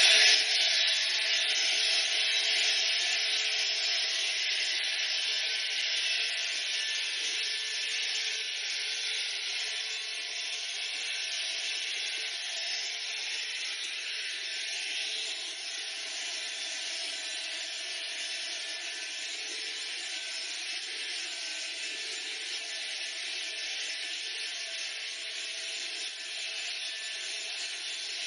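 Heat gun blowing a steady hiss of hot air, used to shrink and tighten the insulation film stretched over the window glass; it grows gradually quieter.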